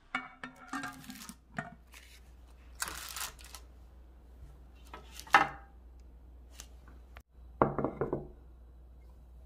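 Kitchen handling sounds from a metal tray, parchment paper and a ceramic plate: scattered clicks and knocks, a short rustle about three seconds in, a sharp click about five seconds in and a ringing clatter near eight seconds.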